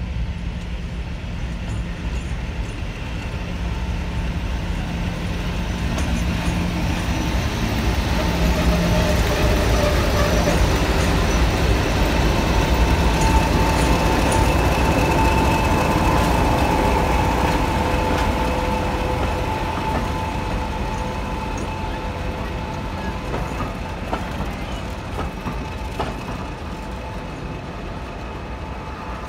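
Diesel locomotives, Class 20 No. 20048 with its English Electric engine and a second diesel, passing close at the head of a passenger train with their engines running. The sound builds, is loudest for several seconds as the locomotives go by, and then fades as the coaches follow.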